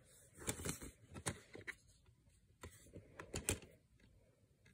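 Faint clicking and rustling of a plastic DVD case and a paper insert being handled, in a few short bursts.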